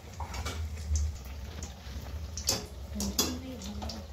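Metal kitchen utensils clinking against a kadai and steel bowls, with a few sharp clacks about two and a half and three seconds in. Beneath them is a faint sizzle of aloo chops deep-frying in oil and a steady low hum.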